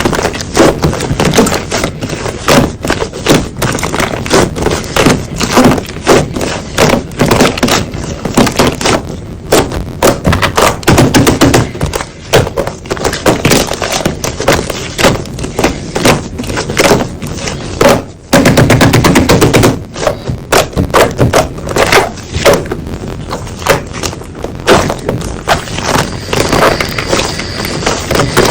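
Slime being squeezed and pressed by hand, giving a dense, fast run of crackling clicks and pops of trapped air, with a louder, thicker squish about two-thirds of the way in.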